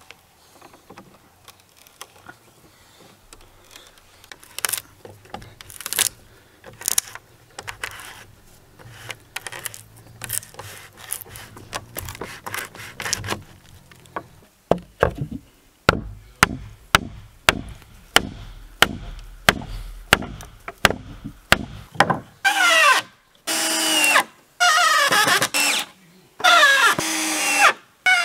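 An auger bit boring into a pallet board, scraping and crunching through the wood. About halfway through comes a run of sharp knocks, about two a second. In the last few seconds a cordless drill drives self-tapping screws in several loud bursts of whining motor that rises and falls in pitch.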